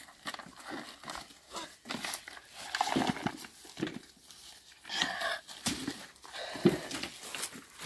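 Fallen green-husked walnuts being picked up and dropped into a plastic bucket: irregular knocks and thuds among rustling of dry grass and leaves, with footsteps on dry ground. The loudest knock comes near the end.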